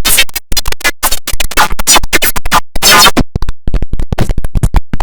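Loud, rapidly chopped and stuttering audio edit: a sound clip sliced into fast repeated fragments with abrupt cuts, giving a record-scratch-like effect.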